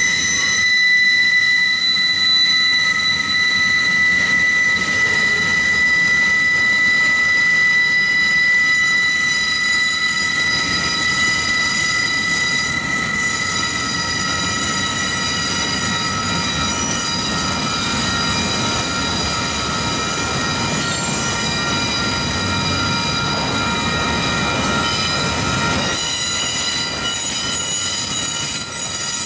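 Autorack freight cars rolling past with steel wheels squealing against the rails in steady high-pitched tones over the low rumble of the cars. The squeal changes pitch pattern about 26 seconds in.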